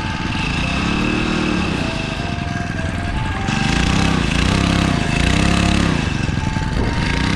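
Small 2 hp water-jet outboard engine (EXECT Poseidon ZXV4000) revving up and back down about five times. From about halfway in, its pump shoots a jet of water from a nozzle above the surface, adding a loud hissing spray.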